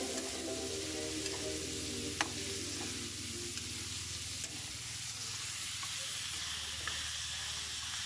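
Pork pieces sizzling as they fry in a wok, stirred with a metal spatula that scrapes and clicks against the pan, with one sharp click about two seconds in.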